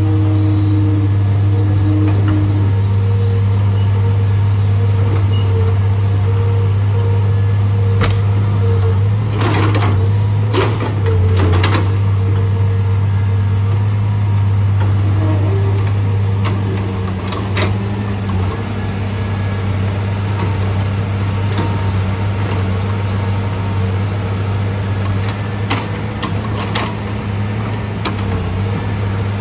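Caterpillar 325 log loader's diesel engine running steadily under hydraulic load while it swings a log in its grapple. About ten seconds in there is a run of heavy knocks and clatter as the log is let go, and the engine note settles slightly lower a little past halfway, with scattered clanks of the grapple and boom.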